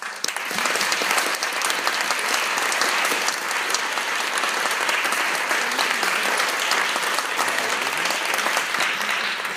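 Audience applauding, breaking out suddenly right at the start and then holding steady with a dense patter of many hands clapping.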